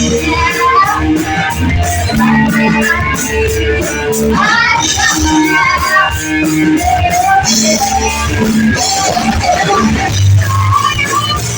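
Live rock band playing a song: electric guitar, bass and drums with cymbals keeping time, and a melody line over the top.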